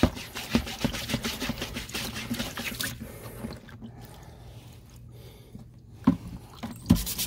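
A scrubbing pad scouring a rusty steel chainsaw bar in a tub of white vinegar, in quick rhythmic strokes for about three seconds. Then quieter sloshing and dripping of the vinegar as the bar is lifted out, with two sharp knocks near the end.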